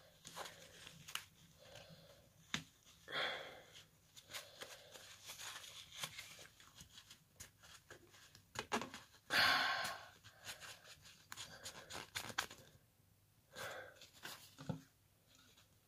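Faint, intermittent rustling and scraping of a tissue soaked in nail polish remover being slid across fingernails, with a few small clicks of handling and two longer swishes about three and nine seconds in.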